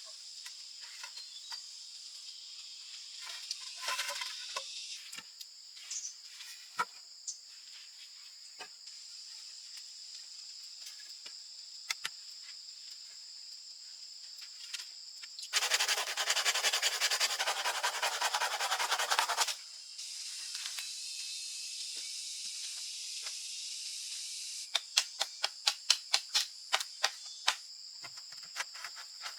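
Steady high buzzing of rain-forest insects, with scattered small clicks and knocks. About halfway through, four seconds of loud rasping noise, and near the end a quick run of about a dozen sharp clicks, some four a second.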